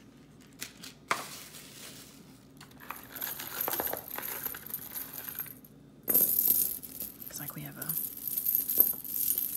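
Metal costume-jewelry chains and tag charms jingling and clinking against each other as a tangled piece is pulled out of the lot. It gets louder from about six seconds in.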